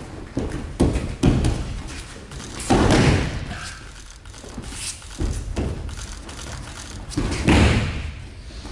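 Bodies and bare feet thudding on a mat as aikido throws and breakfalls are taken. There are several sharp thuds in the first second and a half, then longer, scuffing falls about three, five and seven and a half seconds in.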